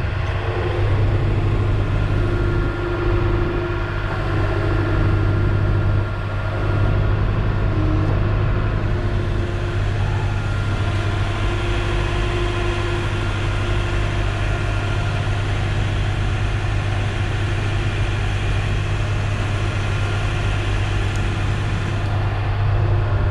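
Truck engine idling steadily, a low drone with a fainter higher hum that comes and goes.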